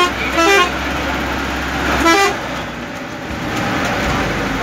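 Vehicle horn giving two short toots, about half a second in and again about two seconds in, over the steady engine and road noise of a vehicle climbing a winding hill road, heard from inside the cabin.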